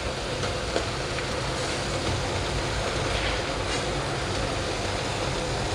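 Noodles frying in a pan: a steady sizzle over a low, even hum, with a few light spatula clicks as they are turned.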